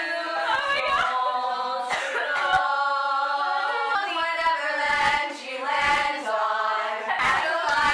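A group of girls singing together in several overlapping voices, holding long notes.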